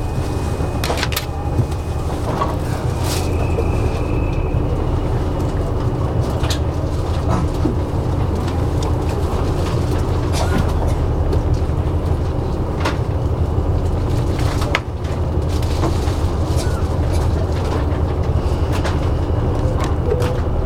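KiHa 85 series diesel railcar heard from inside the car: a steady low engine rumble with a constant hum, broken by occasional short knocks and clicks.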